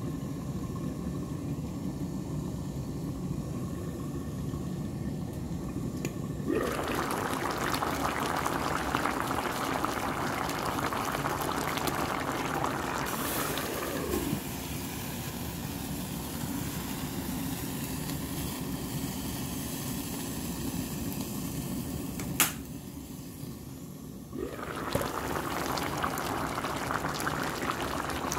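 Pot of green beans, potatoes and ham hock boiling, its bubbling louder at times as the glass lid is handled and lifted. A single sharp clink comes about two-thirds of the way through.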